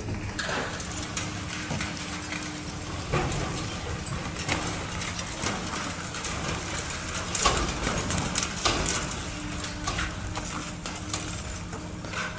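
Heavy machinery running with a steady low hum, under many irregular sharp clanks and knocks, loudest around the middle.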